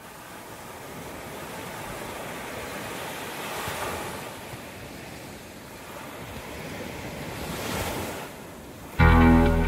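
Ocean surf: a steady rush of waves breaking and washing ashore, swelling twice as waves break, with some wind on the microphone. About nine seconds in, much louder electric-guitar music cuts in.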